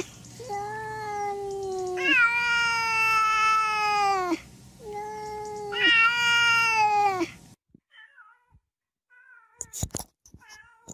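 Black cat meowing in four long, drawn-out calls, alternately softer and louder. About two-thirds of the way in the sound cuts to a Siamese cat's faint short meows and a couple of sharp knocks.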